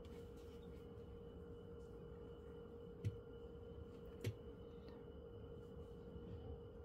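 Quiet room with a faint steady hum, broken by two brief taps about three and four seconds in.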